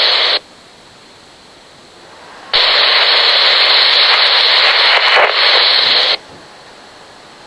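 Pro-97 police scanner speaker giving a burst of radio static for about three and a half seconds: a channel opening with no voice, cutting in and out abruptly, with a low hiss before and after.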